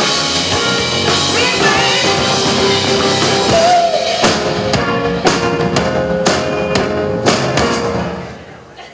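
Rock music with a drum kit, heavy hits landing about once a second, fading out near the end.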